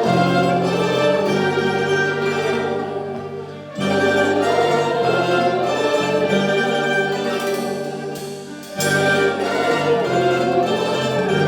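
Instrumental music with plucked strings over held low notes, in phrases that fall back and swell again about every five seconds.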